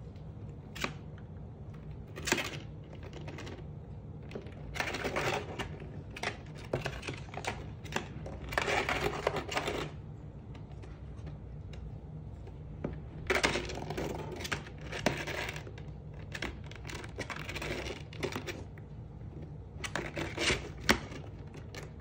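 African grey parrot chewing and tearing at cardboard and a wooden stick with her beak: irregular sharp clicks and crunching, rustling stretches, over a steady low hum.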